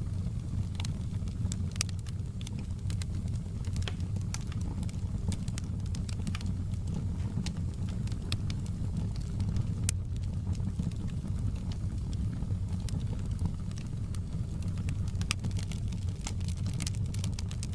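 Fire crackling in a fireplace: frequent sharp, irregular pops and crackles over a steady low rumble.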